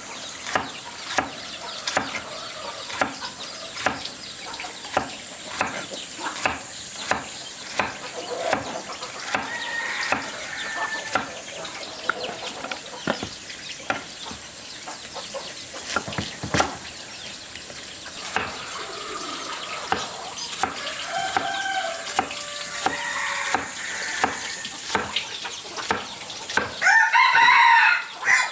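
Chickens clucking, then a rooster crowing loudly once near the end. Behind them run regular sharp knocks, about two a second, and a steady high insect drone.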